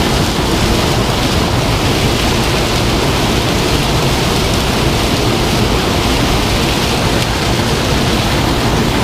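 Loud, steady rushing noise of wind blowing across the microphone.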